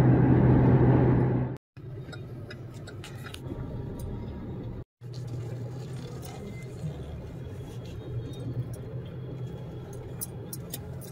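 Car cabin noise while driving: a steady low road and engine hum at highway speed, then, after an abrupt cut about two seconds in, much quieter engine and tyre noise as the car rolls slowly, with scattered light clicks and rattles.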